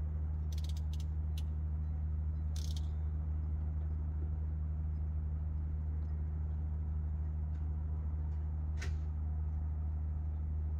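A steady low mechanical hum, with a few short, high clicks in the first three seconds and one more near the end.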